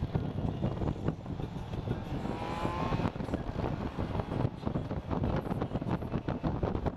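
Wind buffeting the microphone and road noise from a BMW K1600GTL touring motorcycle riding at road speed, with a brief rising tone about two and a half seconds in.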